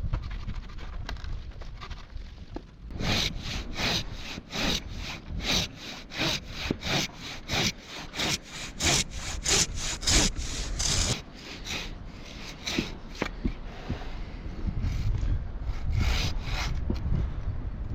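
Hand pruning saw cutting through a tree branch in quick back-and-forth strokes, about three a second. The strokes are strongest for several seconds, ease off, then pick up again near the end.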